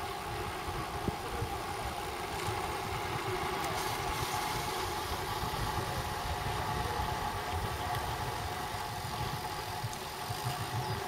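Road bicycle coasting downhill: steady tyre rumble and road vibration, with wind noise on a handlebar-mounted camera's microphone.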